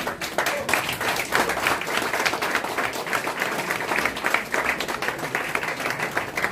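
A room of people applauding, many hands clapping together without a break.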